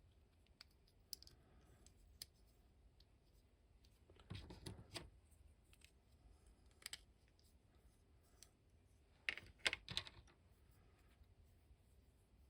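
Small hard-plastic action-figure parts being handled and fitted together: scattered light clicks and taps, with two short bursts of louder clicking clatter, one about four seconds in and one near ten seconds.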